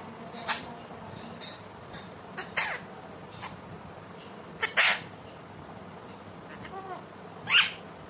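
Alexandrine parakeet giving short, sharp, harsh squawks, about four in all, the loudest near the middle and near the end, with a few soft whistled notes just before the last squawk.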